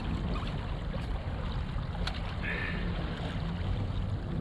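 Strong tidal current rushing and lapping against an anchored kayak's hull, a steady low wash, with a sharp click about two seconds in.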